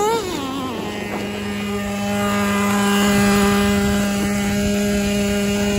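Nitro engine of a Traxxas T-Maxx 2.5 RC truck revving up and falling back at the start, then running at a steady high-pitched idle with the truck close by.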